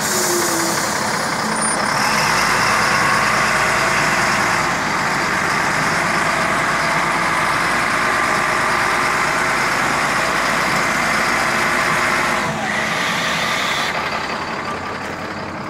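Caterpillar 966D wheel loader running, its diesel engine and drivetrain making a steady mechanical noise, with the differential noise being checked somewhere in it. The noise gets louder about two seconds in and drops back a little near the end.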